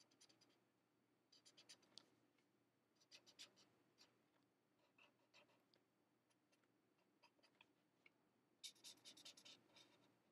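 Faint scratching of a felt-tip marker shading on cardstock, in short bursts of quick strokes, with a longer, denser run of strokes near the end.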